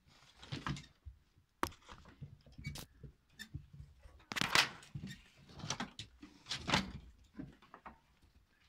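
Irregular knocks, scrapes and rustles of wooden crates and branches in a rabbit enclosure. There is a sharp click a little over a second and a half in, and the loudest, longer scrape comes about four and a half seconds in.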